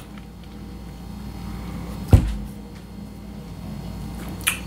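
A single dull thump about two seconds in, over a low steady hum, with a few faint clicks near the end.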